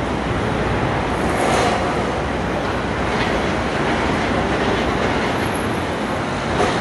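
Steady, loud mechanical din of a construction site and city street, with brief metallic squeals about a second and a half and three seconds in.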